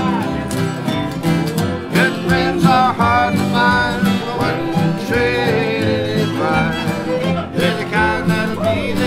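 Small acoustic country band playing: acoustic guitars strumming along with a fiddle and a resonator guitar played lap-style.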